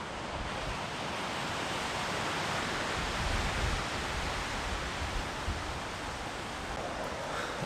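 Small ocean waves breaking and washing up on a rocky beach: a steady rush of surf that swells a little about three seconds in.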